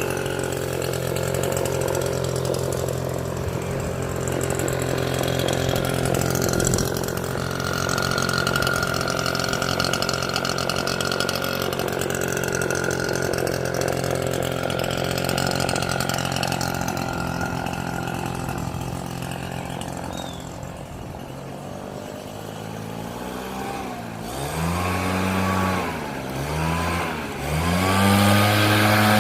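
Petrol-engined leaf blower running steadily, then dropping back about two-thirds of the way through and revving down and up a few times before holding at a higher speed near the end.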